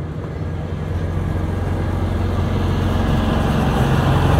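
Zooliner miniature train's diesel locomotive approaching and passing close by, its engine hum and wheels on the rails growing steadily louder as it nears.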